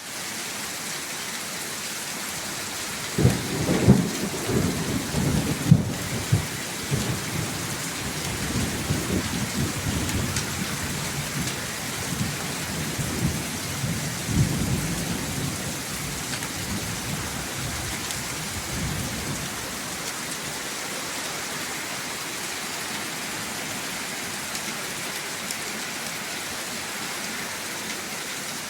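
Steady heavy rain falling. About three seconds in, a long roll of thunder begins, with its sharpest cracks in the first few seconds, and it rumbles on and fades out well before the end.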